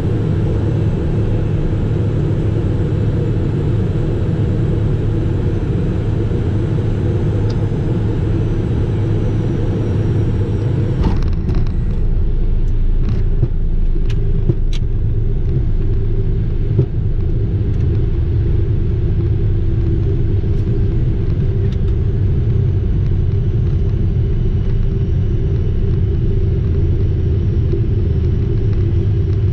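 Cockpit noise of a Cessna Citation Mustang landing: a steady rush of airflow and its twin Pratt & Whitney PW615F turbofans. About eleven seconds in the wheels touch down with a knock and a few clicks, the hiss drops off, and a deeper rumble of the tyres rolling on the runway takes over.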